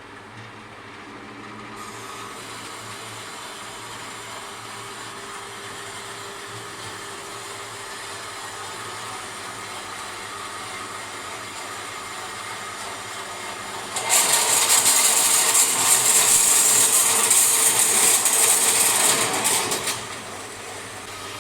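Forestwest 4.5-inch metal-cutting bandsaw running at its slow speed, its 3/4 HP motor and blade giving a steady hum. About 14 seconds in the blade bites into the steel and a much louder, hissing cutting noise takes over for about six seconds, then falls back to the saw running on its own.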